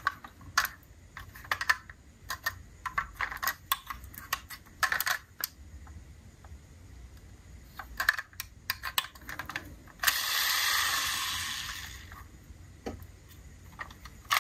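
Diecast model cars and their packaging being handled: irregular light clicks and clacks, a pause, another run of clicks, then about ten seconds in a rush of rustling noise lasting about two seconds that fades, and a few last single clicks.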